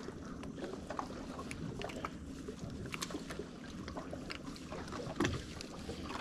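Small clicks and knocks of hands working with fishing line, rope and a fish aboard a small fishing boat, over a steady low rumble of wind and water. There is one louder thump about five seconds in.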